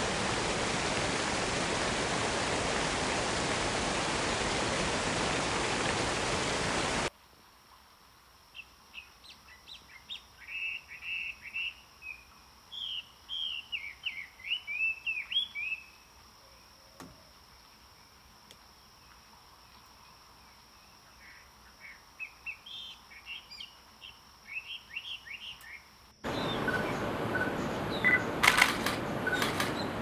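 Steady rain noise that cuts off abruptly about seven seconds in, giving way to small birds twittering in quick bursts of chirps over a faint steady high whine. The rain noise cuts back in just as abruptly near the end, with a few sharp clicks.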